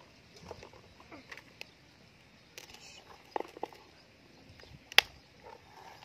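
Plastic toy excavator worked by hand, its bucket scraping into loose sand and tipping it into a plastic toy dump truck, with scattered light clicks and knocks of plastic. A single sharp click about five seconds in is the loudest.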